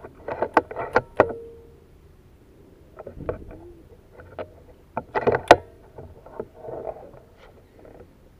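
Sharp metallic clicks and knocks of a PCP air rifle's action being worked between shots, as it is cocked and reloaded. A quick run of clicks comes in the first second, and a louder cluster with one sharp click comes about five seconds in.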